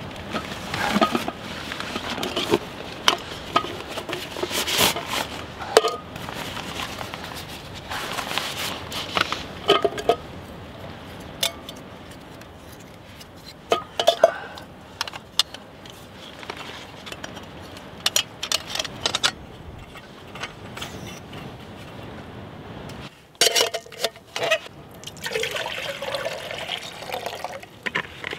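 Light clicks, knocks and clatter of an Alpkit Brukit stove being unpacked and assembled, its pot, burner and plastic parts handled and fitted onto a gas canister. A steady rushing noise runs underneath and cuts off abruptly about three-quarters of the way through, followed by a few sharper clicks.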